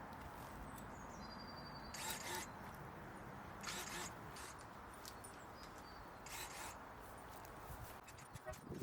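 Garden clearing work: three short scraping, rustling strokes, each about half a second long and a second and a half to two and a half seconds apart, over a steady outdoor background. A few light clicks come near the end.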